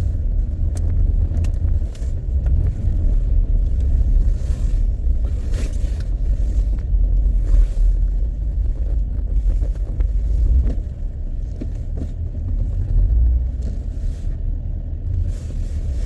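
Low, steady rumble of a car being driven, heard from inside: engine and road noise, with a few faint knocks.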